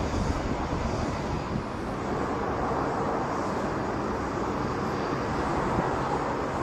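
Jet airliner engines: a steady, even rush. About two seconds in it changes from a low rumble, from a taxiing airliner, to a higher rush, from an airliner on final approach.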